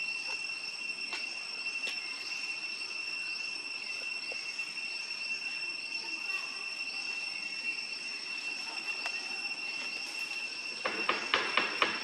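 Steady high-pitched insect drone, with faint short rising chirps repeating over it. Near the end comes a brief burst of crackling clicks and rustles.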